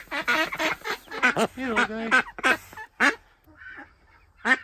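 Khaki Campbell hen ducks quacking, a quick run of short quacks with one longer drawn-out quack about two seconds in, then a lull and one more quack near the end.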